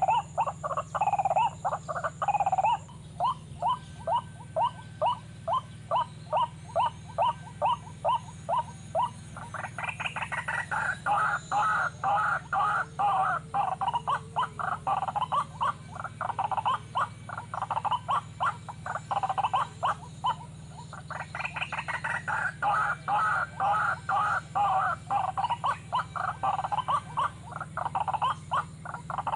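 White-breasted waterhen calling: a long, loud series of repeated croaking notes, steady and evenly spaced at first, then a denser, louder run from about a third of the way in, with a brief break near two-thirds.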